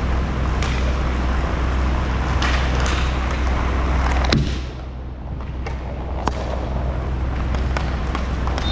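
Inline hockey play on a rink floor: skate wheels rolling and scattered clicks of sticks and puck over a steady low rumble, with two sharp knocks, one a little past the middle and one about two seconds later.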